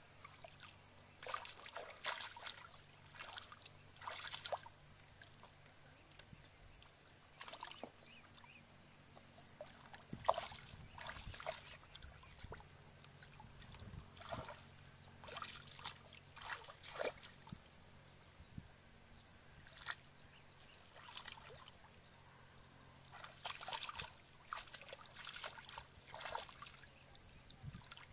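Hands and legs sloshing and splashing in shallow muddy water while groping for fish, in short irregular spells of splashing with quieter gaps between.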